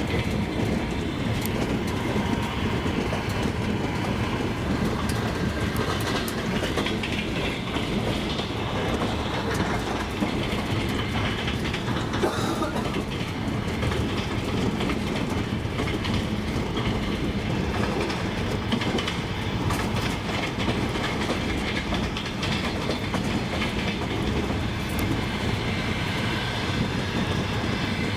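Double-deck passenger train running at speed: steady rumble of the coaches, with the wheels clicking over the rail joints.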